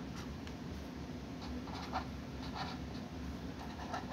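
Pen writing on paper: a string of short scratching strokes as words are written by hand, over a faint steady low hum.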